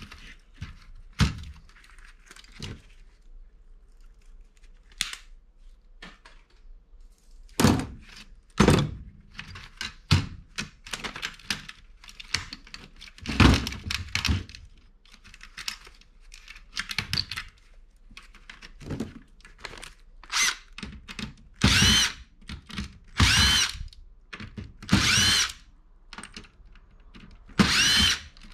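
Cordless drill spinning in short bursts, each a brief rising whine, as it runs screws out of a POS terminal's case. Knocks and clatter of the parts being handled come in between, and the drill bursts come closer together in the last third.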